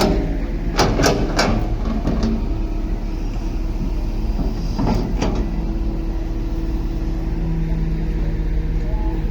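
Komatsu D31 bulldozer's diesel engine running steadily, with a handful of sharp metallic clanks and squeaks from the machine in the first second and a half and once more about five seconds in.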